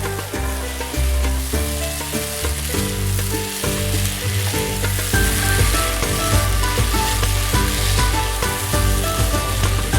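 Food frying and sizzling with a steady hiss, under background music of held bass chords and a melody of short higher notes that comes in about five seconds in.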